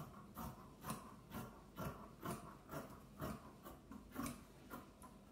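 Dressmaking shears cutting through the edge of a quilted panel of fabric and batting, a faint snip about twice a second in a steady rhythm.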